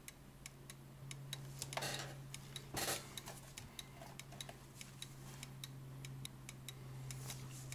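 German chiming mantle clock movement ticking steadily, its pallets striking the escape wheel teeth, while it is test-run after a pallet was lowered slightly to stop it catching. Two brief louder noises come about two and three seconds in.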